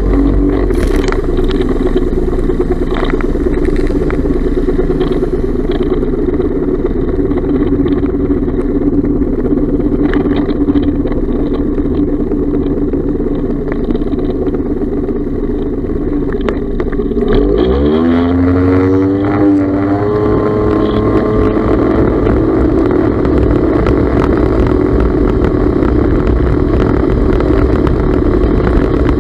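1996 Yamaha Wave Raider's 1100 cc two-stroke triple running at speed on the water. About two-thirds of the way through, the revs climb smoothly over a couple of seconds and then hold higher. With its new fuel pump it pulls cleanly instead of bogging.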